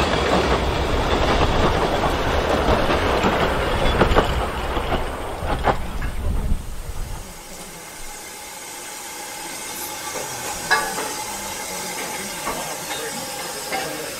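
Narrow-gauge steam train running on the line, the wheels clattering over the rail joints with a steady rumble. About seven seconds in the rumble drops away, leaving a quieter hiss with a few clicks.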